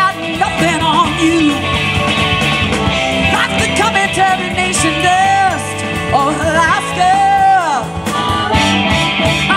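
Live blues band playing: drums, bass, electric guitar and keyboards under a lead line of bent, sliding notes.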